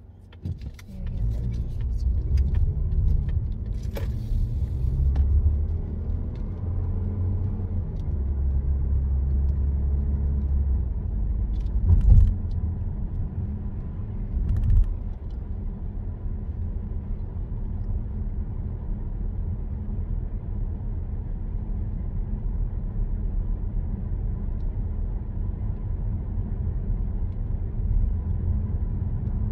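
Car engine and tyre noise heard from inside the cabin as the car moves off and accelerates, the engine note shifting over the first ten seconds. It then settles into a steady rumble at cruising speed. Two thuds come about twelve and fifteen seconds in.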